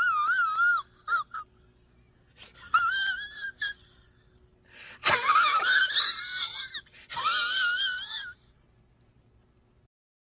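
A meme sound effect: a high-pitched, wavering wheezing cry in four bursts with short gaps between them, dying away well before the end.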